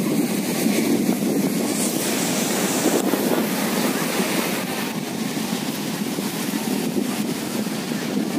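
Steady wind blowing on the phone's microphone, mixed with the wash of surf and the faint murmur of a beach crowd.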